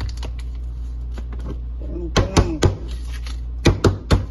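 Small containers being handled on a counter while powders are measured: two quick runs of about three sharp clicks and taps, a glass jar and measuring spoon knocking against a plastic cup, over a steady low hum.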